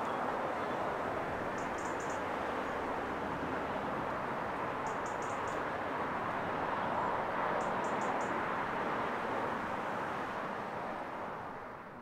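Town street ambience: a steady rush of traffic, with small birds giving three quick bursts of high chirps a few seconds apart. The whole fades out near the end.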